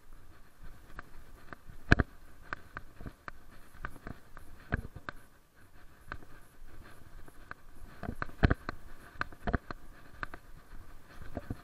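Irregular clicks and knocks from walking a dog on a concrete sidewalk, picked up by a body-worn camera: footsteps and gear rubbing and tapping near the microphone, loudest about two seconds in and again near the middle.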